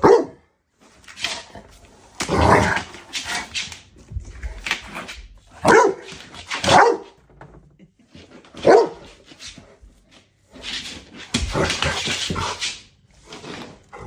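A dog barking at a floor mop, about a dozen short barks at irregular intervals.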